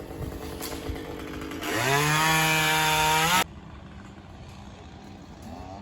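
Chainsaw revving up to full throttle about two seconds in and holding a steady high pitch for about a second and a half, then stopping abruptly. Fainter steady engine noise runs before and after.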